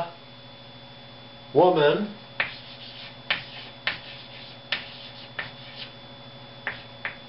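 Writing on a teaching board: a string of sharp taps and short scrapes, about ten in five seconds, as the words of a sentence are written out.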